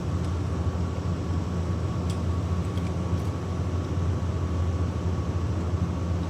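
A steady low machine hum with a faint, thin high whine over it, and two faint clicks about two and three seconds in.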